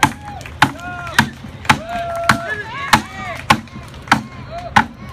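Large competition chopping knife hacking into wood in rapid repeated strokes, about one sharp chop every 0.6 seconds, with voices calling out between the strokes.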